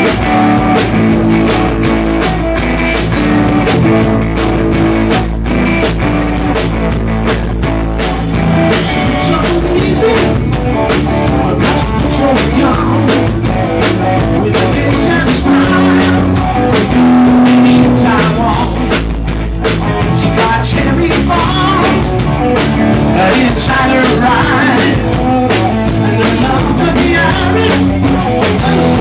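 Live rock band playing a song, with guitar, drum kit and singing.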